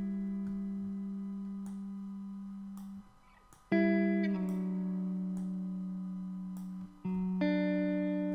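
Background music: slowly fading chords on a plucked, guitar-like instrument. A short gap comes about three seconds in, then fresh chords are struck, and again about seven seconds in.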